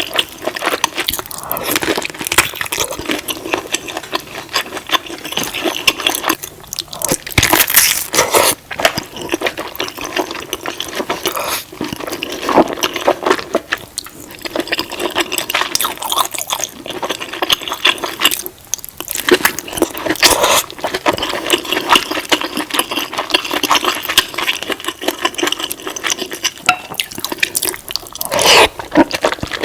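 Close-miked eating of a saucy seafood boil: a dense, continuous run of short, wet chewing and shell-handling sounds.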